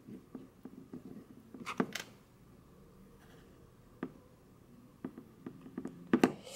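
Light taps and clicks of a hot glue gun and plastic sequin stars being handled on a wooden craft star as a star is pressed down, with a few sharper knocks about two seconds in and near the end.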